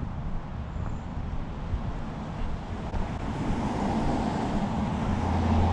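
Road traffic noise, with a vehicle's low rumble growing louder over the last couple of seconds.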